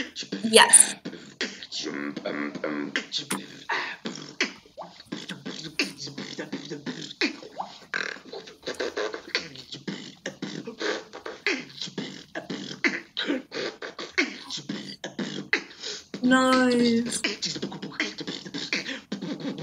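Man beatboxing: a fast, continuous stream of mouth-made drum hits and clicks, with a short held sung note about sixteen seconds in.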